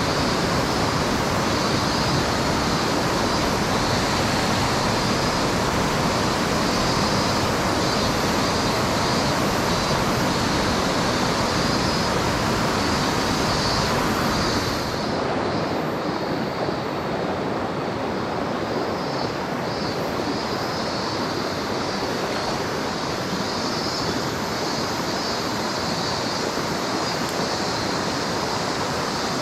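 Steady rushing of a mountain stream: constant, even water noise. About halfway through it turns a little softer and duller.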